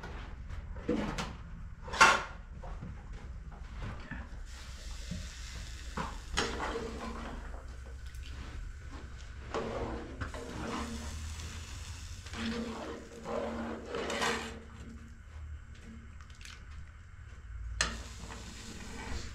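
Glass tea glasses clinking against each other and a metal tray as they are handled and rinsed, the sharpest clink about two seconds in. Between the clinks are stretches of water pouring and splashing.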